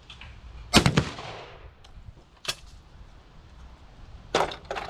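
12-gauge shotgun shots at clays: a loud report about a second in with a long fading echo, a fainter shot a moment later, then two more shots in quick succession near the end.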